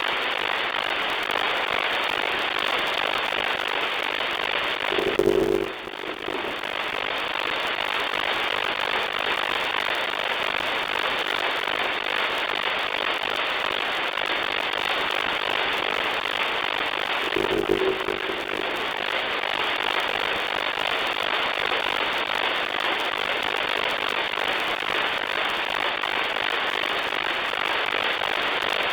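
Shortwave receiver static: a steady hiss of band noise from an SDR tuned to the 40-metre amateur band with no one talking. Twice, about twelve seconds apart, a short low tone cuts in, and the hiss dips for a moment after each.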